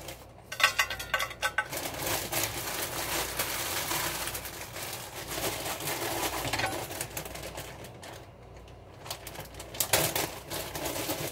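Clear plastic freezer bags of frozen vegetables crinkling and rustling as they are handled, a dense run of small crackles and ticks, with a sharper knock about ten seconds in.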